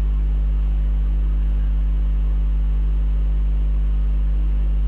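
Steady low electrical hum with a faint hiss, holding unchanged.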